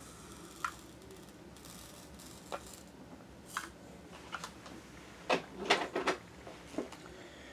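Diamond painting drill pen tapping resin drills onto the sticky canvas and picking them up from the tray: light, sharp clicks and taps, a few single ones, then a quick cluster about five to six seconds in.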